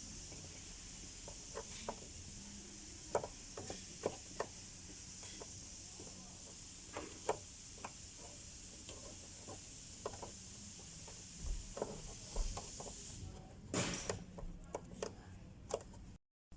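Scattered light clicks and knocks of tools and parts being handled as a fuel pump assembly is fitted into a car's fuel tank, over a steady high hiss that stops about thirteen seconds in.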